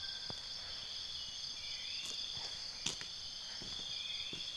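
Steady, high-pitched chorus of insects droning without a break, with a couple of faint short chirps and a single sharp click about three seconds in.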